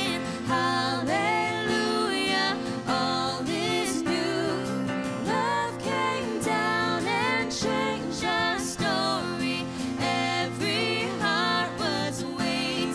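Christmas worship song from a church worship band, with a singing voice over sustained accompaniment.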